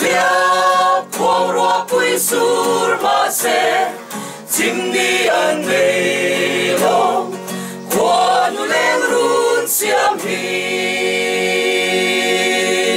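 Small group of men and women singing together to a strummed acoustic guitar, holding a long final note over the last few seconds.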